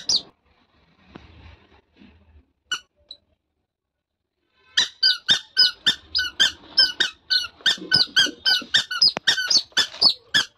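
A toddler's squeaky shoes chirping with each step: one squeak about three seconds in, then a steady run of short, high squeaks about two to three a second from about five seconds in as the child walks.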